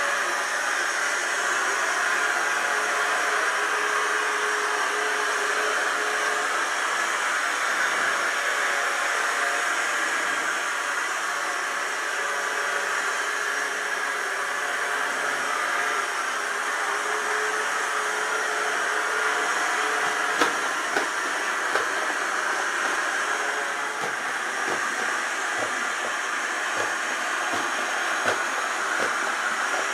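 clever&clean M-series 002 robot vacuum cleaner running with a steady whirring suction fan, with a few short clicks in the second half.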